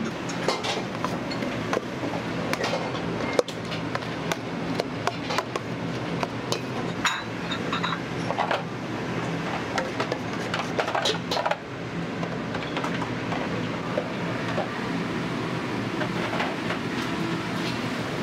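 Restaurant kitchen at work: a steady low roar of burners and exhaust hood under frequent clinks and clatters of metal utensils and dishes, with one sharp knock about three and a half seconds in.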